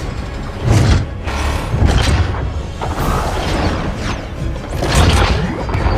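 Music with heavy booming hits and whooshing sweeps over it, about three big hits, the loudest near the start and about five seconds in.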